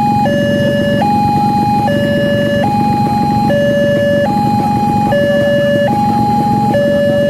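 Railway level-crossing warning alarm sounding an electronic two-tone hi-lo signal: a higher and a lower tone alternate, each held just under a second, repeating evenly. A steady low rumble runs underneath.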